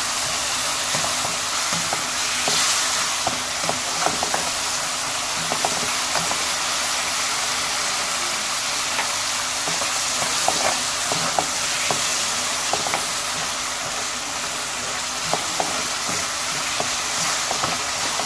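Onion, garlic and tomato masala sizzling in oil in a pan while a spatula stirs it, with scattered short scrapes and taps against the pan. The masala is being fried down with small additions of water so it doesn't stick or burn.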